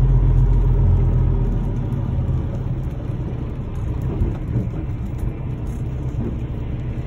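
Semi truck's diesel engine running, heard from inside the cab: a steady deep rumble that eases lower about two and a half seconds in.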